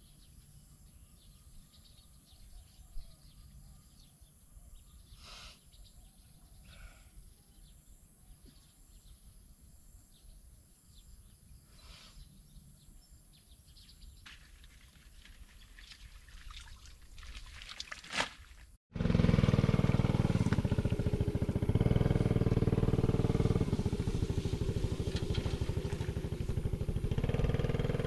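Quiet outdoor ambience with a few faint bird chirps. About two-thirds of the way in it cuts abruptly to an engine running loudly and steadily.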